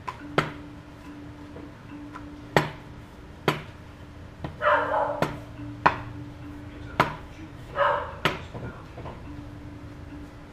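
Rolling pin knocking and clacking against a board as dough is rolled out, with about eight sharp knocks at irregular intervals. A dog barks twice in the background, about halfway through and again near the end.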